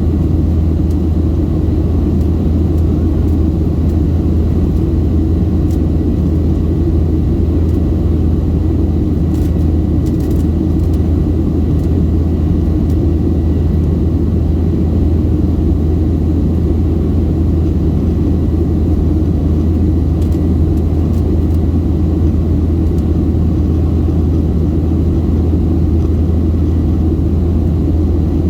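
Steady cabin drone of a Boeing 737-700 in its climb: low engine rumble from its CFM56-7B turbofans mixed with rushing airflow, heard from a passenger seat.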